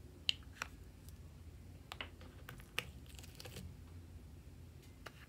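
Light clicks and taps of small plastic pots and bottles being handled and set down, a handful of sharp ticks spread out with a short cluster near the middle.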